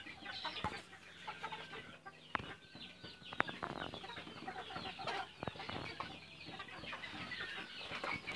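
A flock of chickens clucking quietly, with a few sharp clicks or taps scattered through.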